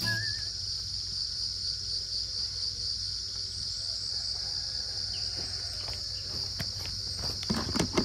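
Crickets chirring in a steady, high-pitched insect chorus, with a few brief rustles and knocks near the end.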